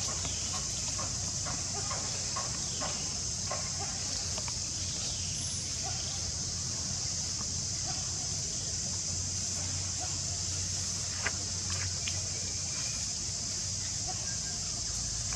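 Short, high squeaks and chirps from a baby monkey, scattered irregularly over a steady high-pitched buzz.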